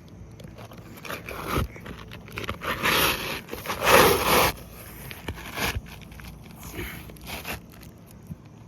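Asphalt shingle scraping and crackling as it is slid back in under the loosened shingles above it, in several rough bursts, the loudest about four seconds in.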